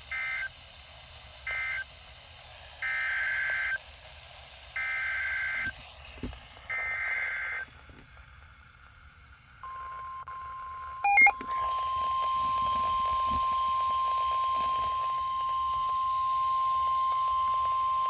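NOAA Weather Radio Emergency Alert System tones. First come two short, buzzy two-tone data bursts that close the previous warning, then three longer header bursts, each about a second long and two seconds apart, that open the next warning. About ten seconds in the steady single-pitch warning alarm tone begins; a brief crackle a second later is the loudest moment, and the tone then carries on louder.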